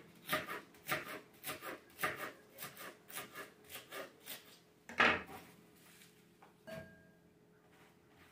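Kitchen knife slicing a head of green cabbage into thin shreds on a cutting board, in steady strokes about two a second. A louder stroke about five seconds in, then the slicing stops.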